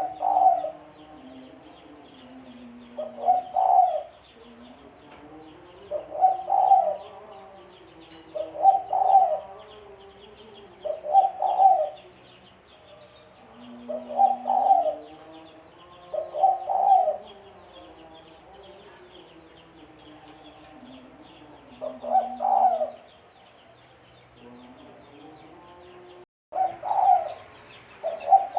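Spotted dove (tekukur) cooing over and over, one phrase every two to three seconds, with a fainter low wavering tone beneath. There is a brief break in the sound near the end.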